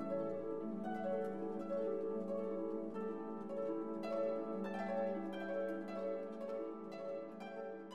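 Instrumental background music: a steady run of plucked string notes over a held low note, getting quieter near the end.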